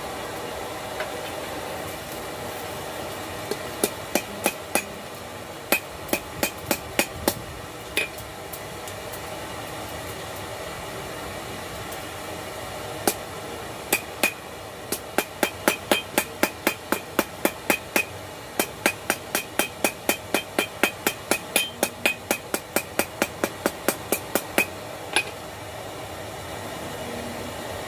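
Hammer blows on an anvil while forging a steel knife blade: a short series of ringing strikes, a pause, then a longer steady run of about two to three strikes a second, over a steady background hiss.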